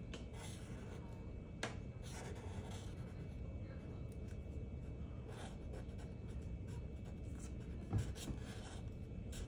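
Black Sharpie felt-tip marker drawing on a paper card: irregular short strokes of the tip rubbing across the paper, with one sharper tick about one and a half seconds in.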